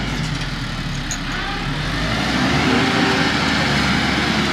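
Tractor engine running steadily while it spreads dirt with a rear blade, its pitch rising and falling a little partway through.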